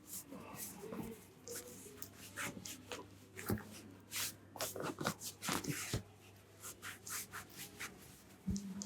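Hands massaging a head: irregular rubbing and brushing strokes through hair and over the scalp, with a few sharper pats or slaps.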